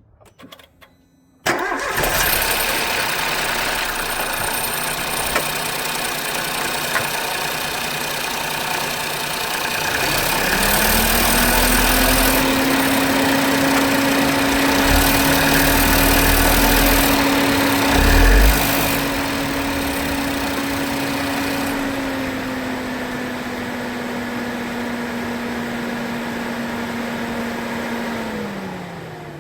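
A car engine starts suddenly and runs steadily. About ten seconds in, a steady whine rises in, holds, and slides back down near the end.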